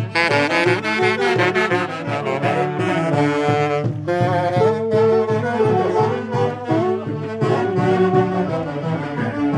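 Saxophone brass band playing a pasacalle street march, the saxophones and brass carrying the tune over a steady drumbeat.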